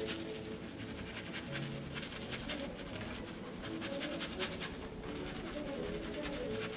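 Stiff-bristled paintbrush scrubbing and dabbing paint onto a canvas: a rapid, uneven scratchy rustle of many short strokes.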